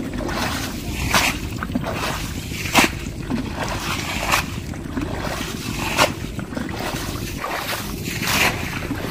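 Muddy water scooped with a plastic container and flung out of a shallow ditch, in repeated splashes about every one and a half seconds.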